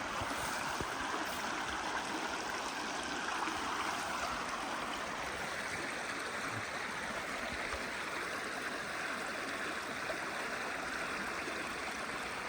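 Small trout stream's water running steadily.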